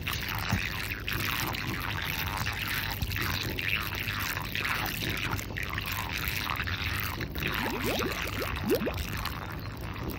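Water gurgling and bubbling at the submerged end of a pool vacuum hose as it is primed, air being pushed out of the hose while it fills with water. There are a few brief rising chirps about eight seconds in.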